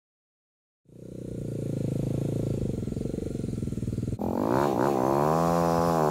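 An engine running steadily starts about a second in. Near the end it cuts abruptly to a small dirt bike engine idling and revving, its pitch rising and falling with the throttle.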